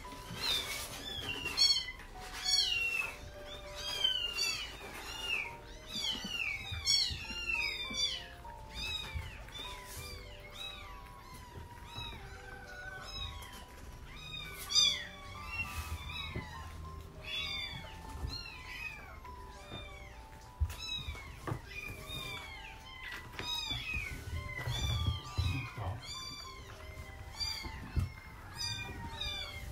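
Young kittens meowing over and over, a steady stream of short, high-pitched calls that rise and fall, busiest in the first several seconds.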